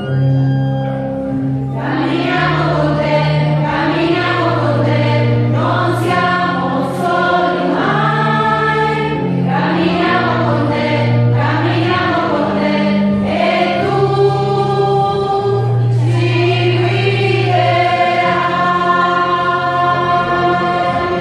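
A hymn sung by many voices over sustained organ-like chords. The chords are there from the start and the singing comes in about two seconds in.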